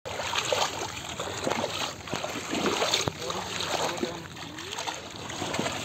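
Legs wading through shallow floodwater among submerged weeds: irregular sloshing and splashing with each step.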